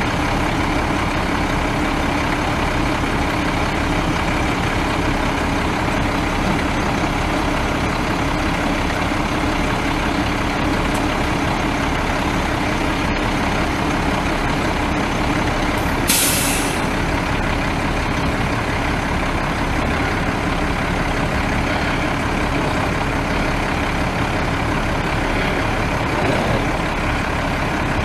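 Cummins ISB 5.9-litre straight-six turbo diesel of a heavy truck running steadily. About halfway through there is a short, sharp hiss of air from the truck's air-brake system.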